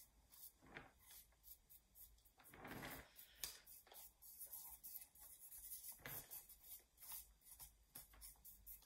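Faint, irregular scraping of a thin wooden stick working wet plaster on a sculpture's base plate, pushing it under and around the foot.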